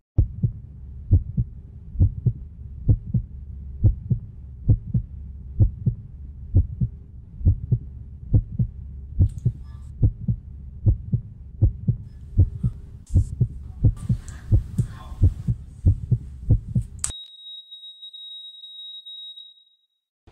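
Heartbeat sound effect: a steady run of low thuds over a faint drone. About three-quarters through it stops suddenly, and a single continuous high beep, like a heart monitor flatlining, holds for about three seconds.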